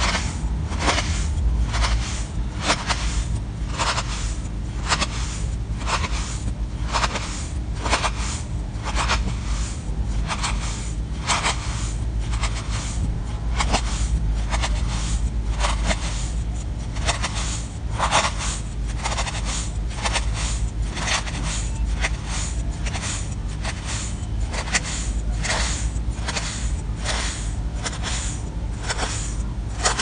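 A knife slicing thin layers off a block of kinetic sand on a wooden board: a crisp, crumbly scrape with each cut, about two cuts a second, over a steady low rumble.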